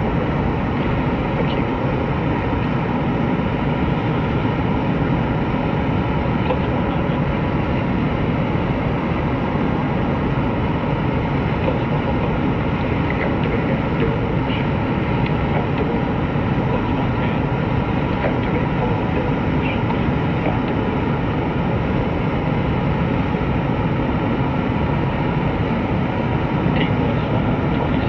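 Five-segment solid rocket booster for NASA's Space Launch System firing in a horizontal static test, a steady, unbroken rumble of exhaust noise that holds level throughout. This is the booster at full burn partway through its two-minute test firing.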